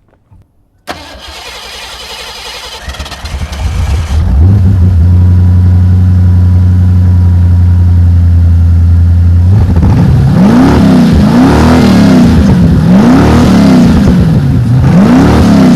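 1988 Ford Crown Victoria's V8 engine cranked over by the starter for a few seconds, catching and settling into a steady idle. About ten seconds in it is revved four times, each rev rising and falling back toward idle.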